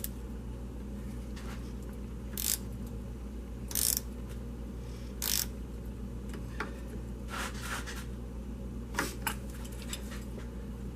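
A wrench tightening a car battery's terminal clamp: short metallic clicking and scraping strokes, about one every second and a half, over a steady low hum.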